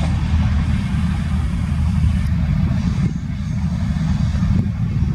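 Humsafar Express train in motion: a loud, steady low rumble.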